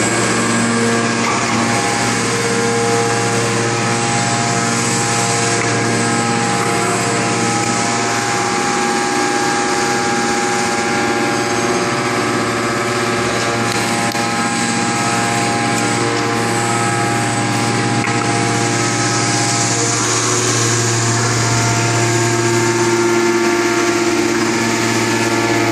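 Hydraulic power unit of a four-column hydraulic press running, a steady machine hum and whine made of several held tones. The low hum weakens about 8 seconds in and grows strong again from about 19 seconds, as the pump's load changes.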